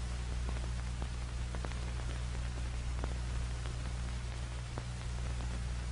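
Background noise of an old film soundtrack: a steady low hum and hiss with a scattered few faint clicks and crackles.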